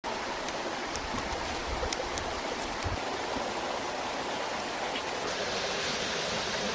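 Steady rushing noise like flowing water, with a few faint ticks in the first three seconds; the hiss grows a little brighter just after five seconds in.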